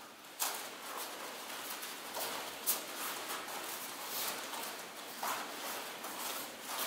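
Scattered light footsteps and taps over a steady background hiss.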